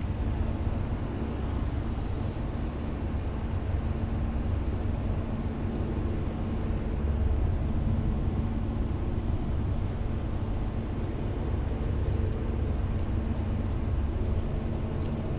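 Steady engine and road rumble inside the cabin of a moving vehicle, deep and even, with a low hum.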